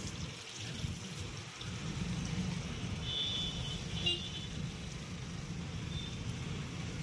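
Steady street noise: a low rumble of road traffic under a constant hiss, with a brief high squeal about three seconds in.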